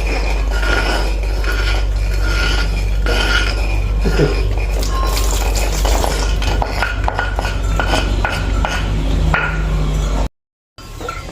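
Pots and metal utensils clinking and scraping while warm water and the herbal mix are prepared, over a steady low hum. The sound cuts out briefly near the end.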